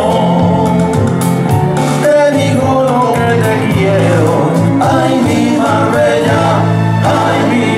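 A pasodoble sung in Spanish by two men over instrumental backing, the voices holding long, wavering notes.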